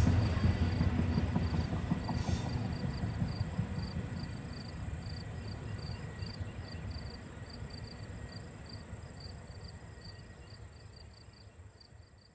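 Double-stack intermodal container freight train rolling away, its low rumble and wheel noise fading steadily to almost nothing. Insects chirp in a faint, regular high pulse underneath, heard more clearly as the train dies away.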